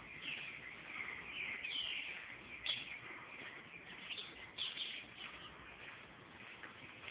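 Small birds chirping in short, irregular high calls, with one sharp click about two and a half seconds in.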